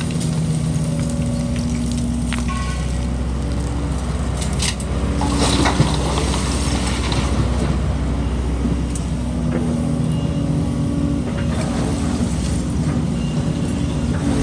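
Diesel engines of an excavator and dump truck running steadily, with a few clattering knocks of concrete rubble being handled about four to six seconds in.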